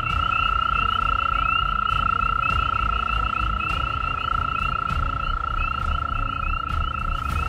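A male American toad trilling: one long, steady, high-pitched note held without a break, with rapid high chirping from other calling animals and a low rumble behind it.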